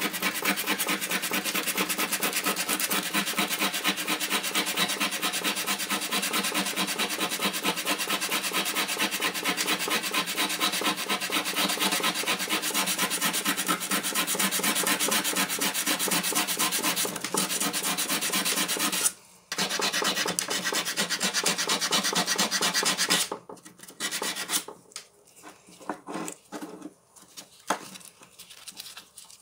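Abrasive paper rubbed by hand over the steel jaws of a rusty Knipex side cutter to scour off the rust: rapid, continuous back-and-forth rasping strokes. They stop briefly a little past two-thirds of the way through, then come in shorter, fainter spells with gaps near the end.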